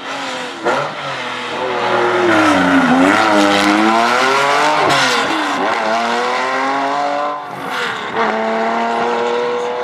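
Classic rally car engine working through a hairpin: the revs fall as it slows into the bend, dip twice more in quick succession, then climb as it pulls away, with a short break near the end before a steady rising note as it accelerates off.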